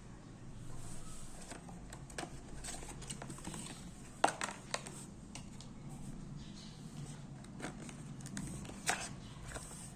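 Packaging being handled during a smartphone unboxing: scattered light clicks and taps, with sharper knocks about four seconds in and again near the end, over a low steady hum.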